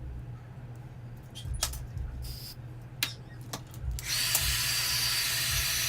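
A few sharp clicks, then about four seconds in a small electric motor switches on and runs steadily with a high whine.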